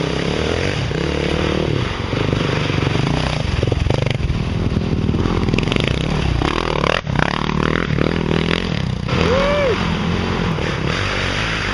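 Trail bike engines revving up and down as dirt bikes ride past on a slippery dirt track, one passing close about four seconds in.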